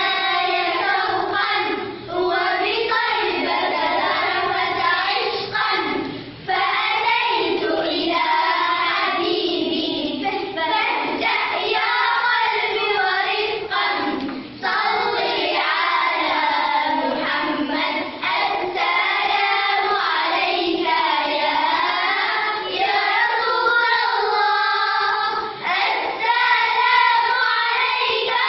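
A group of schoolchildren singing a religious nasheed together, continuing with only brief pauses between lines.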